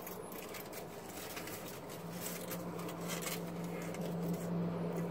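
Aluminium foil taco wrapper crinkling softly in a hand, small scattered crackles inside a car, over a steady low hum that comes in about two seconds in.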